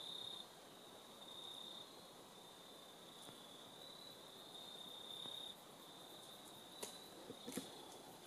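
Faint insect trilling: a thin, high, steady buzz that comes in stretches lasting half a second to a second and a half, over a faint outdoor hiss. A few faint clicks near the end.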